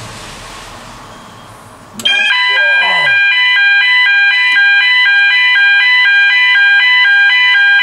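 Electronic fire alarm sounder going off during a system test. It starts suddenly about two seconds in, loud, with tones switching back and forth rapidly and evenly, and cuts off abruptly at the end. It sounding shows the alarm system is working.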